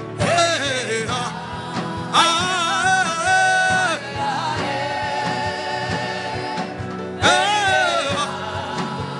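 Gospel worship music: a voice sings three long, wavering phrases without clear words over a sustained held chord and a steady beat.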